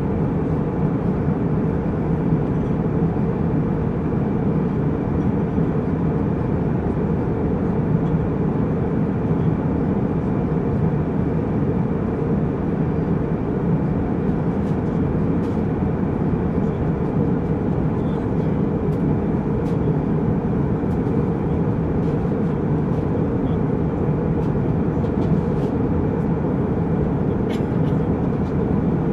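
Jet airliner cabin noise in flight: a steady low rumble that does not change, with a few faint ticks in the second half.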